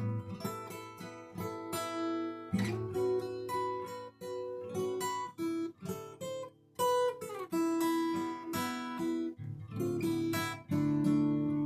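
Solo acoustic guitar playing an unhurried melody of plucked notes and chords, each one left to ring, with a brief break a little past halfway.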